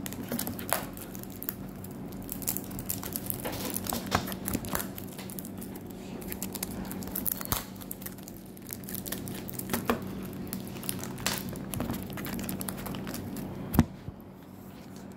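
Cellophane wrapping on a small perfume box crinkling and crackling as fingers handle and pick at it, in irregular bursts, with a sharper click near the end. A steady low hum runs underneath.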